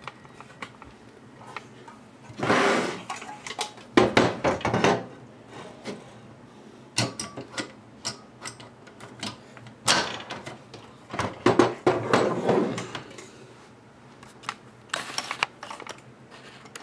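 Handling noise as a Sensus iCon electric meter is worked into a meter socket: several bursts of plastic-and-metal scraping and knocking as its blades are pushed into the socket's jaws, the loudest about four seconds in and around twelve seconds in.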